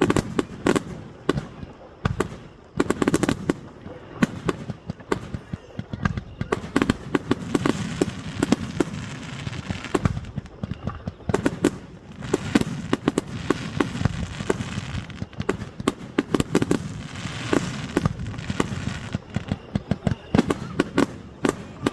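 Fireworks display: a dense, rapid run of sharp bangs and crackles from bursting shells, several a second, over a continuous rumble.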